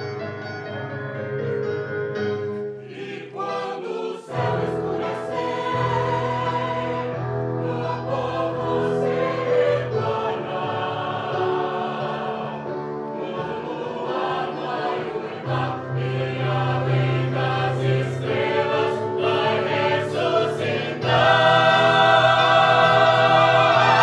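Group of voices singing a song from a stage musical, with instrumental accompaniment underneath. The music swells louder about three quarters of the way through.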